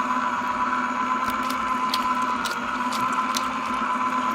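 Steady hum of a small electric motor with a constant whine, and a handful of short sharp clicks of eating over it.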